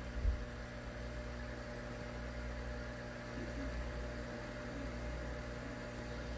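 Steady low hum with a soft hiss from the aquarium's air-driven sponge filters running. A brief low bump comes about a quarter second in.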